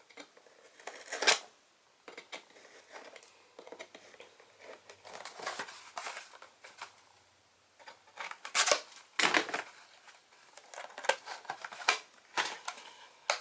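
Packaging of an HDMI-to-DVI cable being handled and opened by hand: irregular rustling, crinkling and clicks, with louder handling noises about a second in and again near two-thirds through.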